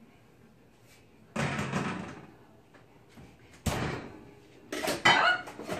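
Kitchen oven door and rack being handled: a sudden thump about a second and a half in, a sharp knock a couple of seconds later, then a run of clatter near the end.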